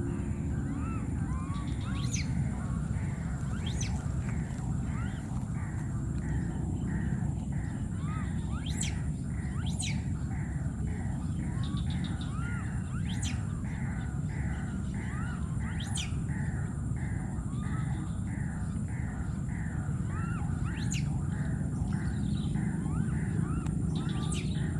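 A baby monkey calling over and over, about two or three short arched calls a second, with a sharp high-pitched squeal every few seconds. A steady low rumble runs underneath throughout.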